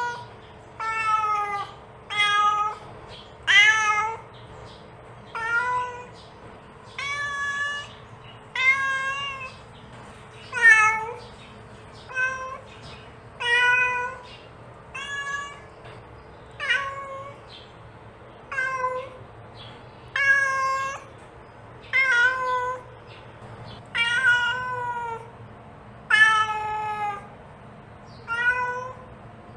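Mother cat meowing over and over, calling her kittens: about twenty short calls, one every second or two, each with a slight rise and fall in pitch.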